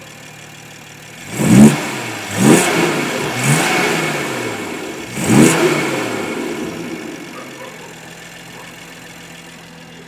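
BMW M340i's 3.0-litre turbocharged inline-six, fitted with a DO88 carbon fibre intake, blipped from idle four times in quick succession, each rev rising and falling, the first the loudest. After the last blip it settles back to a steady idle.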